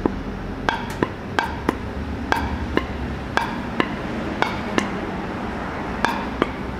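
Light taps on a Toyota 2TR-FE piston crown, with the ring compressor clamped around the rings, driving the piston into the cylinder bore. About a dozen taps, often in quick pairs, each with a short metallic ring.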